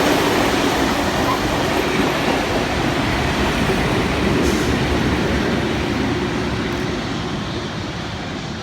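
A train running past, a steady rumble of wheels and machinery that slowly fades as it draws away.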